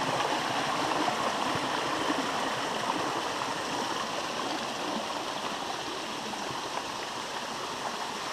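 Rushing water of a stream over rocks: a steady, even rush that slowly eases in level.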